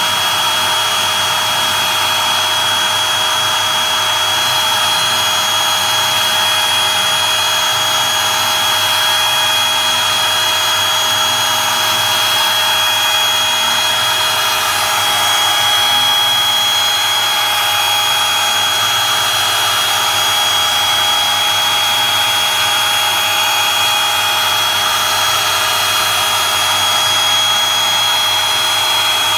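Makita RT0700C trim router on a CNC machine, spinning a 6 mm two-flute cutter through plywood 3 mm deep at 1600 mm/min. It makes a loud, steady high whine over the cutting noise.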